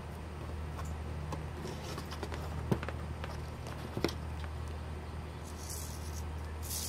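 Handling noise from a small 3D-printed RC car front axle being moved and turned over on a wooden tabletop: light plastic clicks and taps, the two sharpest a little under three seconds and about four seconds in, over a steady low hum. Two brief hisses near the end.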